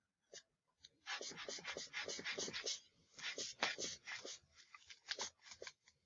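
Manual blood pressure cuff being pumped up by quick squeezes of its rubber bulb, a fast run of short, scratchy rushing sounds starting about a second in and thinning out near the end.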